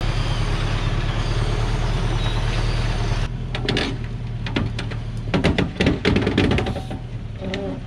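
Engine of a Hoa Mai truck loaded with acacia logs running steadily on a rough dirt track, with an even hiss over it at first. About three seconds in, a string of sharp knocks and clatters sets in over the engine drone, loudest around five to six seconds in.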